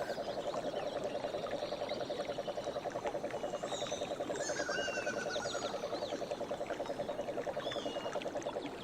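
A frog's long, rapid pulsed trill, low and very regular, that stops just before the end, with small birds chirping and whistling higher up and a faint wash of running water underneath.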